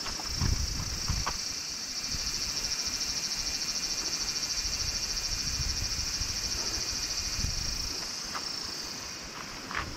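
Insects trilling in a steady, high, shrill chorus with a fast pulse. A few low thumps come about half a second and a second in.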